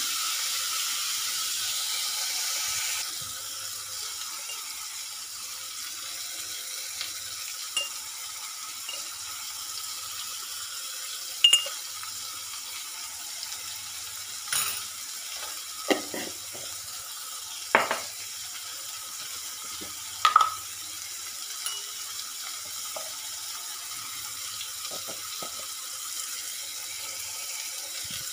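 Chopped onions and tomatoes sizzling steadily in a nonstick kadhai, louder for the first three seconds and then quieter. A few sharp clicks and knocks come through while powdered spices are added.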